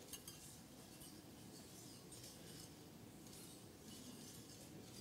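Faint clinks of champagne glasses and tableware as a toast is raised, over near silence in a large room.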